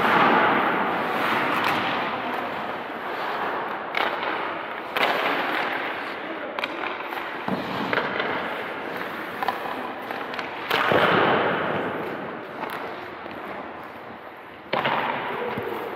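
Ice hockey goalie drill: about six sharp cracks, each followed by a scraping hiss that fades over a second or two, from pucks being shot and skate blades cutting the ice.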